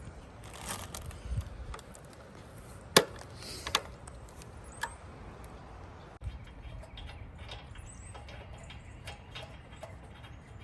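Scattered clicks and knocks of hand work on a mower engine, parts and tools being handled, with one sharp knock about three seconds in and lighter ticks after.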